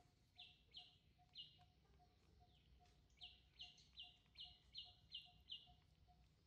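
Faint bird chirping: a series of short, high, even notes, three in the first second and a half and then a quicker run of about seven. A faint steady ticking, two or three a second, runs underneath.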